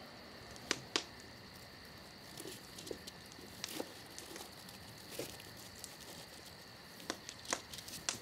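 Wood campfire crackling, with scattered sharp pops and soft paper rustling as a notebook is taken out and handled.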